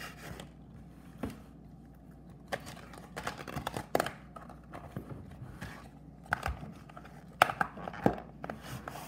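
Small plastic slime tubs being handled and their snap-on plastic lids pressed shut: irregular clicks and knocks, the sharpest near the end.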